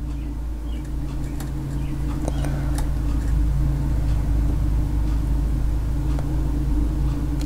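A steady low mechanical rumble with a low hum, growing slowly louder over the first few seconds and then holding, with a few faint ticks.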